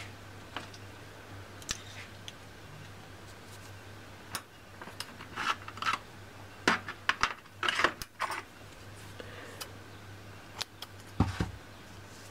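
Scissors snipping cotton wick for the atomizer's coils: a run of short, sharp snips and clicks, thickest in the middle, then a low thump near the end.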